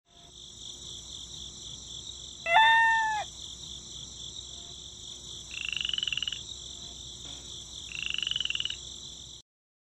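Nature ambience of frogs: a steady, evenly pulsing high-pitched chorus, with two trilling croaks, one about halfway through and one near the end. About two and a half seconds in comes the loudest sound, a short pitched animal call.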